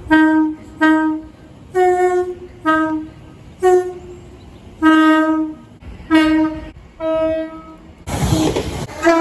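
Train horn sounding a series of short blasts, about a second apart, at two slightly different pitches, with one longer blast about five seconds in. About eight seconds in a brief burst of rushing noise cuts in, and a longer horn blast begins right after it.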